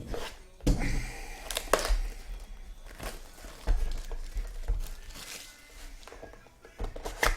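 Sealed trading-card boxes being unwrapped and opened by hand: plastic wrapper crinkling and tearing, with cardboard and packs knocking together in several thumps.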